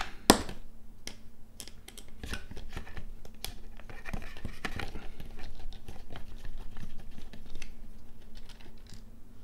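A small precision screwdriver turning out the large screw that holds an AKG K702 headphone's ear cup: irregular small clicks and scratches of metal on plastic as the screw and plastic parts are worked and handled, with one sharp click just after the start.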